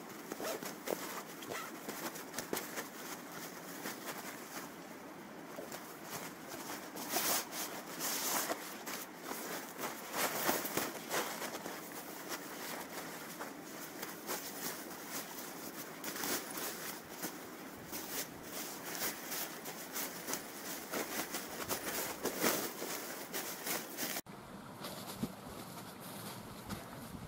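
Close rustling and crinkling of nylon bags and a plastic tarp groundsheet as a bivvy bag and sleeping bag are pulled from stuff sacks and spread out, with many small crackles. Near the end it changes suddenly to a quieter, steady hiss.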